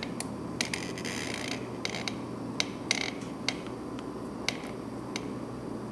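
Silicone dispenser at work over a drinking straw: about ten sharp, irregularly spaced clicks and taps as the cartridge is squeezed and its tip is tapped along the sides of the straw.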